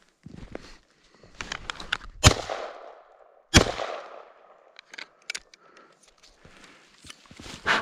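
Two shotgun shots fired at a hare, just over a second apart, each a sharp bang with a short fading echo. Footsteps crunch through snow around them.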